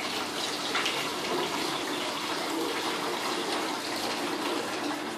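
Condensate water pouring steadily from the corner of a plastic drip tray through a plastic funnel into a plastic jerrycan, a continuous splashing stream.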